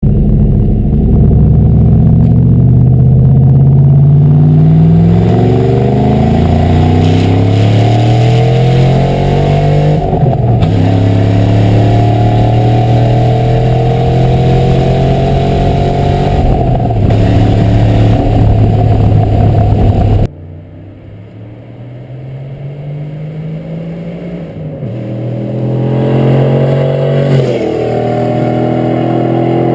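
1996 Ford Mustang SVT Cobra's V8 engine and exhaust, revved up and held at raised revs, played to show an exhaust leak. The revs climb slowly, fall back and hold steady. About two-thirds of the way in the sound suddenly gets quieter, then the revs climb and fall once more near the end.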